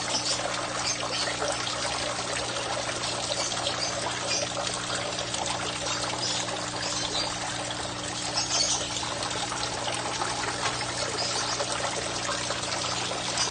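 Several thin streams of water falling into a fish pond and splashing steadily on its surface, with a steady low hum underneath.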